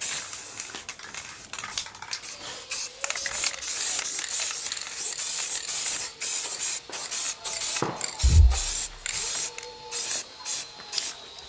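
Spray gun hissing in short, repeated bursts that start and stop about every half second to second, with one low thump about eight seconds in.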